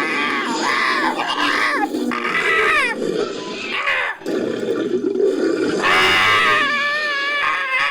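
Made-up creature sound effect: layered screeches and growls with sliding, often falling pitch. It is mixed from hawk and eagle calls, dinosaur sound effects and a human voice. There is a brief break about four seconds in, then a longer call from about six seconds in.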